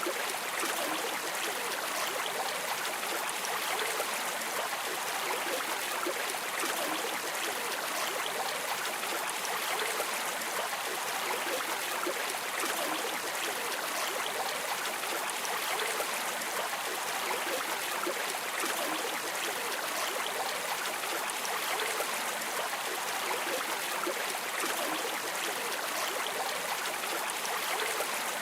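Flowing stream water: a steady, even rush with small splashes throughout.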